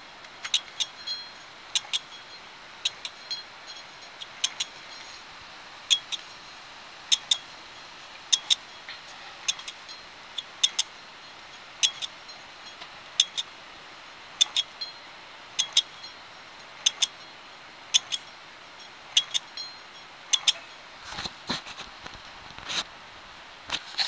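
Worn wheel hub bearing turned by hand, giving sharp metallic clicks at an uneven rate of about one or two a second. The clicking is the sign of the bad bearing.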